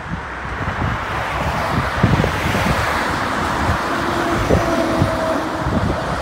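Wind buffeting the microphone over the steady roar of road traffic passing close by, swelling about two seconds in. A faint steady whine joins about halfway through.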